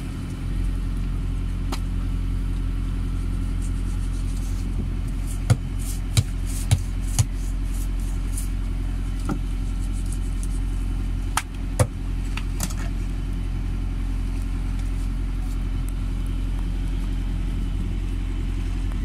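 Fishing boat's engine running with a steady low drone. Over it come a few sharp knocks, four about six seconds in and two more near twelve seconds, with faint scraping from knife work on the fish.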